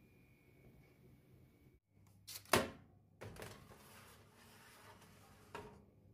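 Metal baking tray set down with a sharp knock on an oven's wire rack, then scraping as it is slid in, and a second knock near the end as it is pushed home.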